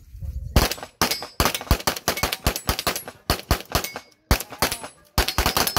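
Rapid pistol fire from two competitors shooting head to head in an IPSC handgun shoot-off. Quick strings of overlapping shots begin about half a second in, break off for about a second around four seconds in, then resume.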